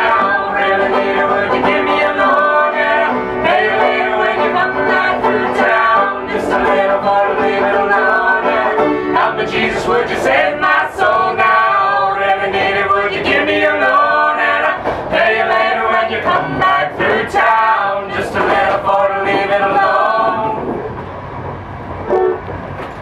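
Acoustic folk band playing live: banjo and acoustic guitar strumming with several voices singing together. The music gets quieter near the end.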